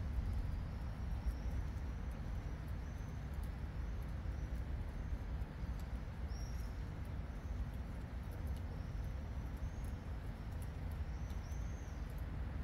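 Steady rain falling on tree foliage over a low, steady rumble, with a bird giving short high chirps several times.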